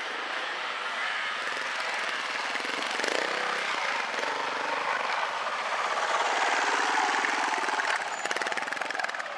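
Trials motorcycle engine running with quick, rapid firing pulses, its revs rising and falling as the throttle is worked; it is loudest about two-thirds of the way through.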